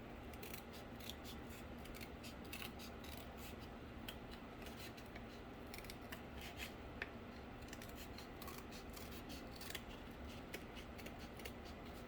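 Scissors snipping cardboard: a run of faint, irregular snips and small crunches.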